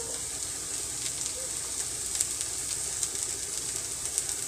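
Vegetables frying in a pan on the stove: a steady sizzle with small scattered crackles.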